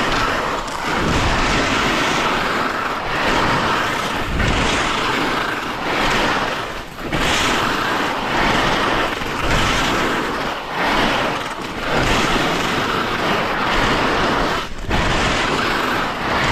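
Skis sliding and scraping over snow on a descent, with wind rushing over the microphone. The noise is loud and continuous, swelling and easing every second or two.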